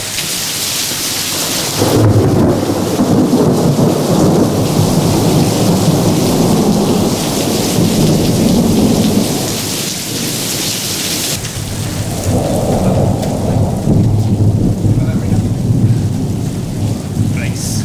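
Thunder rolling over heavy rain: a long low rumble starts about two seconds in and lasts some eight seconds, and a second roll follows from about twelve seconds in. The rain hiss is plainest at the start, before the first roll.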